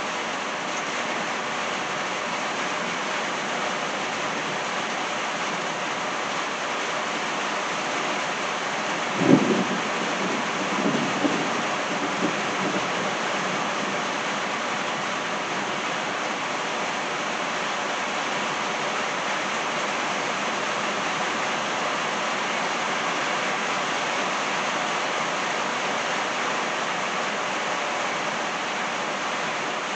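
Steady rain falling. About nine seconds in there is a sudden clap of thunder, which rolls on in low rumbles for about three seconds.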